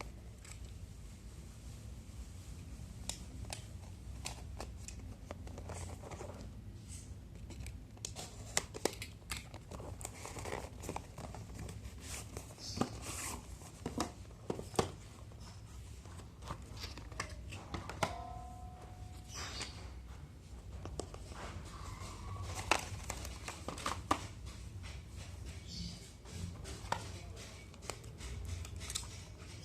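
Phone box and packaging being handled: plastic and paper crinkling, with irregular small clicks and taps. A brief tone sounds about halfway through, over a steady low hum.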